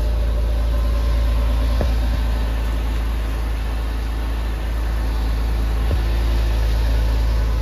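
2003 Porsche Boxster's flat-six engine idling steadily, just reinstalled after a service. It runs smooth on its new serpentine belt, its pulleys turning evenly.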